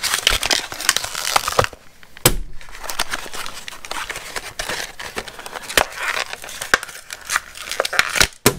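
Paperboard and plastic blister packaging being torn apart and crumpled by hand: a run of crackling, rustling and tearing with many sharp clicks.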